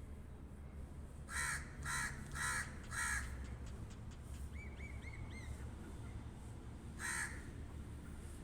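Pet crow cawing: four short caws in quick succession about a second in, then a single caw near the end.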